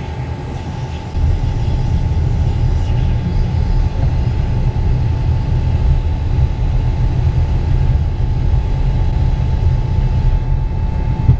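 The four Rolls-Royce Conway engines of a Vickers VC10 running as the aircraft taxis and turns: a steady low rumble with a constant high whine over it, getting louder about a second in.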